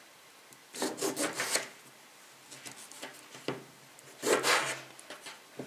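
A knife cutting through a lemon in three short bursts of sawing strokes, with quiet pauses between them.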